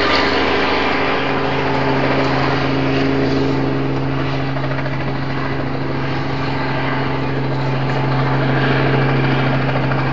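Small red helicopter flying overhead: a steady rotor-and-engine drone whose low hum changes pitch about a second in.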